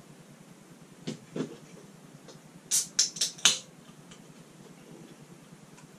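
Drink cans and small cups being handled on a table: two light knocks about a second in, then four quick, sharp clicks close together near the middle.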